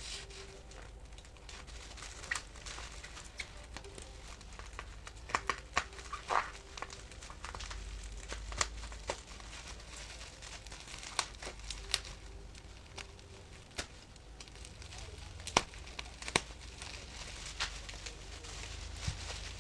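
Album packaging being handled during an unboxing: irregular crinkles and sharp clicks of paper and plastic.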